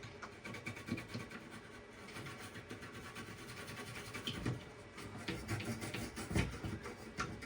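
Toothbrush bristles scrubbing dust off a PC motherboard, a run of quick scratchy brushing strokes.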